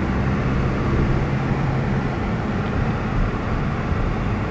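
Steady low rumble of a moving car, engine and road noise heard from inside the cabin.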